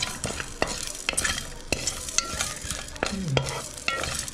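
Whole cumin seeds, cloves and black peppercorns dry-toasting in a metal pot, sizzling while being stirred, with frequent sharp clicks and scrapes against the pot.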